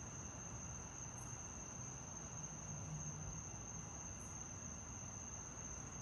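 Crickets trilling steadily in one high-pitched note, over faint background hiss.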